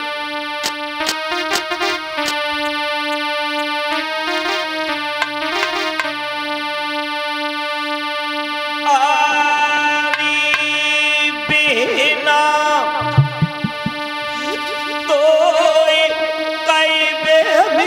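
Electronic keyboard playing a slow melody over a held drone note; from about nine seconds in, a man's voice joins, singing with a wavering pitch.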